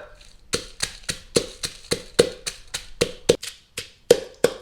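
Pestle pounding dried and fresh chilies in a mortar, a steady run of knocks at about three to four a second.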